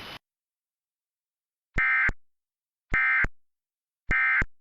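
Emergency Alert System end-of-message signal: three short bursts of SAME digital data tones about a second apart, each starting and stopping abruptly. The bursts mark the end of the tornado warning broadcast.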